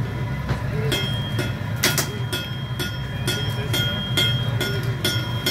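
Steady low roar of a gas-fired glassblowing furnace, with sharp metallic clinks about three a second from about a second in, each leaving a thin high ring.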